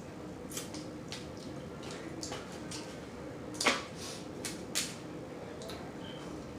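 Eating sounds from picking and eating blue crab: scattered wet mouth smacks and small clicks, with a sharp one about three and a half seconds in and another about a second later.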